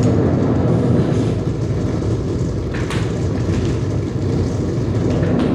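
Dense, loud, low rumbling noise drone from DIY square-wave oscillators and effects-processed electronics, holding steady, with a few brief hissy flares above it, one about three seconds in.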